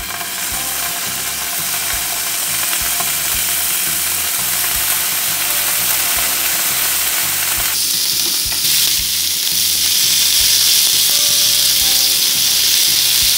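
Paneer pieces sizzling as they shallow-fry in a lightly oiled hot pan over a medium flame. The steady sizzle grows louder and brighter about eight seconds in.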